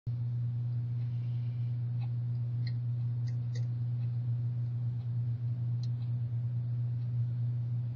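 A steady low hum, with a few faint small ticks about two to four seconds in and once more near six seconds.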